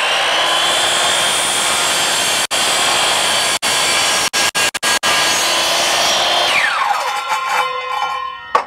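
Craftsman miter saw running at full speed as its blade is lowered slowly through a Trex railing, cut slowly to avoid chipping. A steady high whine runs until about six and a half seconds in, when the motor is switched off and winds down to a stop with a falling whine.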